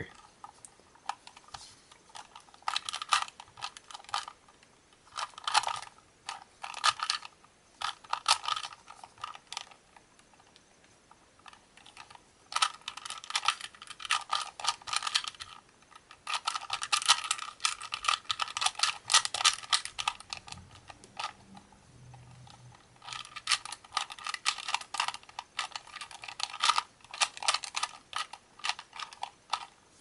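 A 2x2x2 Rubik's Cube (pocket cube) being turned fast by hand: rapid runs of plastic clicks and clacks as the layers are twisted. Short pauses come between runs, the longest about ten seconds in and again about twenty seconds in.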